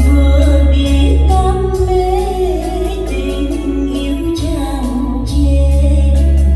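Background music: a song with a singing voice over a heavy bass line and a percussive beat.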